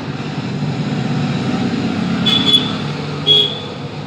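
Hot-air SMD rework station blowing steadily onto the phone board to melt the solder and seat a new charging jack, with two short high-pitched tones about two and three seconds in.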